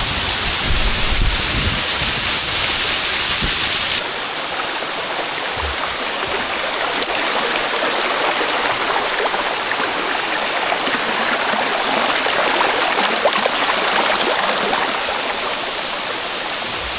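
Waterfall's rushing water, a steady wash of noise that changes abruptly about four seconds in, from a louder, hissier sound with some low rumble to a softer, even rush.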